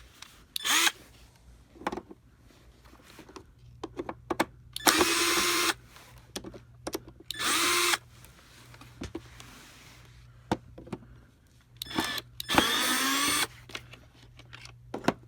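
Cordless drill-driver spinning in four short bursts of about a second each, running screws out of the vacuum cleaner's housing, with small clicks and knocks of handling between the bursts.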